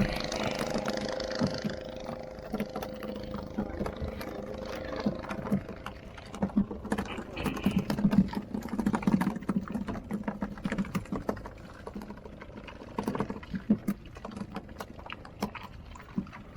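Rapid, uneven knocking and thumping on a boat, in clusters, with a steady motor hum that fades out over the first few seconds.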